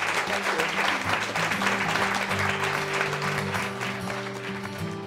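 An audience applauding, with guitar music playing underneath; the clapping thins out near the end as the music takes over.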